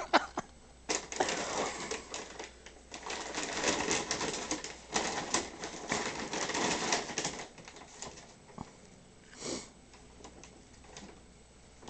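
A bag rustling and crackling as a cat scrabbles around inside it. A dense run of crackles lasts several seconds, then it goes quieter, with one short burst near the end.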